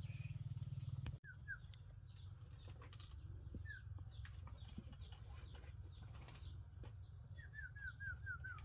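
Small birds chirping: short falling chirps, one at a time and then a quick run of about six near the end, with scattered clicks, over a steady low hum.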